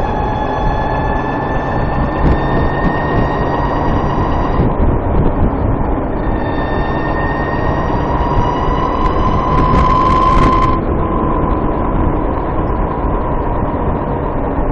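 Motorcycle riding along with road and wind noise, over which its transmission makes a high-pitched chirping whine, several thin tones that slowly rise in pitch. The whine swells about eight to ten seconds in, then cuts off suddenly. This chirp is a transmission fault that the rider finds louder once the transmission is warmed up and worst under load at lower speeds.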